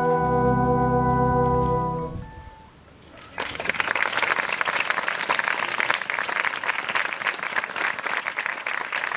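Brass band with a solo baritone horn holding the final chord of a piece, which ends about two seconds in. After a short pause the audience breaks into steady applause.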